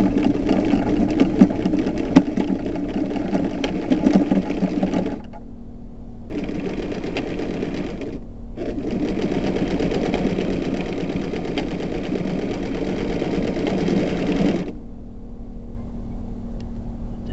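Old electric sewing machine stitching fabric, running in spurts: it runs for about five seconds, stops, runs for about two seconds, pauses briefly, then runs for about six seconds more and stops.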